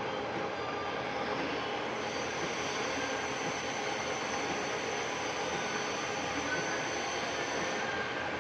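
Steady machinery noise with a faint high whine, a continuous metallic running sound.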